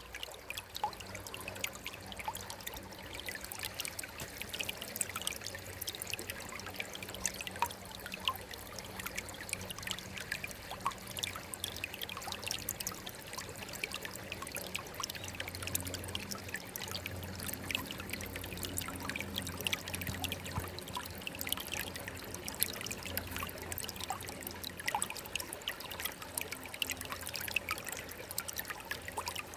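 Water trickling and splashing steadily, a dense patter of small drips and splashes with no pause.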